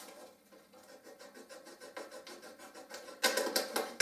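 Packaging being handled and rustled: a fast run of small crackles, about six a second, then louder, denser rustling near the end.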